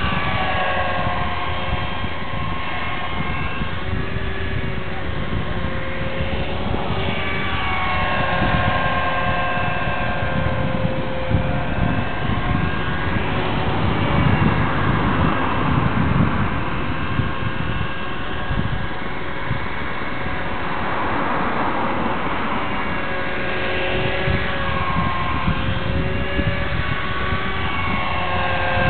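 Model helicopter in flight: a whine from its motor and rotors that rises and falls in pitch as it manoeuvres, with wind rumbling across the microphone.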